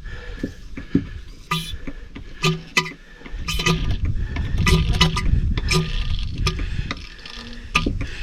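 Hand oil pump working in a quick run of clinking strokes, about two to three a second, as engine oil is pumped into an excavator's engine. A low wind rumble sits underneath.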